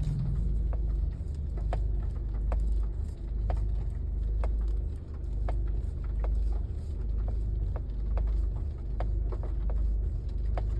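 Tata Harrier's steering making a series of sharp, irregular clicks, a 'kat kat' noise, over the low rumble of the car's engine running. The cause is unknown: the clicking has not been cured by checking the clock spring and combination switch or by replacing the intermediate shaft.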